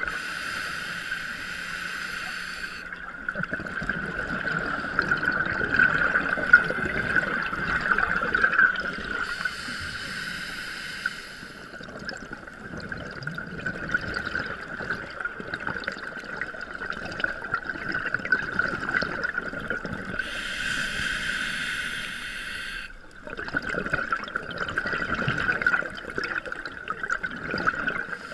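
Scuba breathing through a regulator underwater: exhaled bubbles gurgle unevenly, and a sharper hiss comes three times, over a steady high whine.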